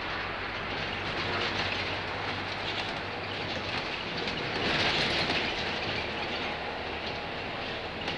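Steady engine and road noise heard from inside a moving double-decker bus, swelling for about a second midway.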